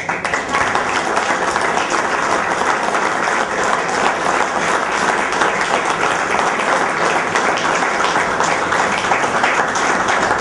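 Applause from a room of people, breaking out suddenly and continuing steadily, louder than the speech around it.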